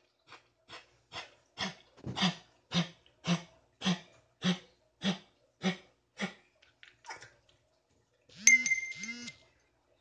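A dog coughing in a long run of about a dozen harsh hacks, roughly two a second, building up and then fading away. Near the end come two short, bright metallic clinks.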